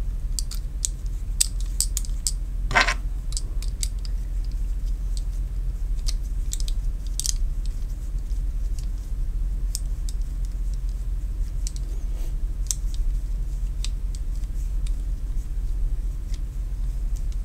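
Light metal clicks and scrapes as a takedown finka knife is fitted back together by hand, its guard and metal fittings seating on the blade tang, with one louder click about three seconds in. A steady low hum runs underneath.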